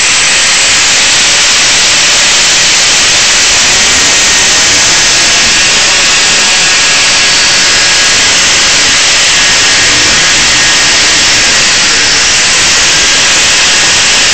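Angle grinder cutting through steel handcuffs, running loud and steady under load throughout.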